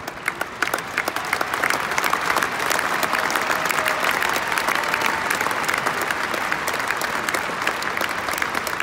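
Large stadium crowd applauding, with sharp individual hand claps close by; the clapping swells over the first second or two and then holds steady.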